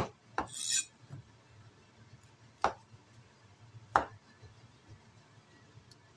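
Cleaver slicing mushrooms on a wooden chopping board: four sharp knocks of the blade hitting the board, with a brief scrape after the second, and the last knock about four seconds in.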